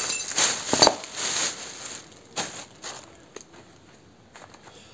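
Clear plastic packing bag rustling and crinkling as small parts are taken out of it. For the last three seconds it goes quieter, with a few scattered light clicks and taps.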